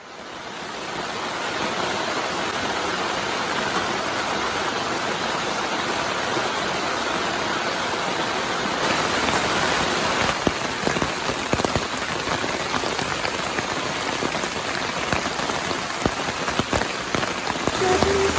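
Steady rain falling, fading in over the first second or two, with sharper single drops landing from about halfway on.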